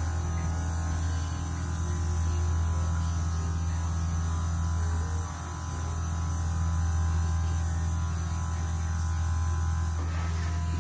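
Electric fuel transfer pump running with a steady hum while it is still priming and has not yet picked up fuel. The level dips briefly about five seconds in.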